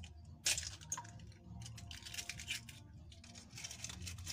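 Eggs being cracked and their shells handled over a bowl: a short crunchy burst about half a second in, then scattered small clicks and taps.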